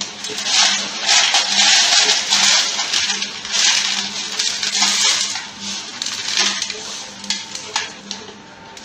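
Loose bituminous mix (dense bituminous macadam chunks and fines) poured from a paper bag into an enamel tray: a dense rattling patter of pieces hitting the tray and each other, with paper rustling. It thins out over the last few seconds as the pour slows.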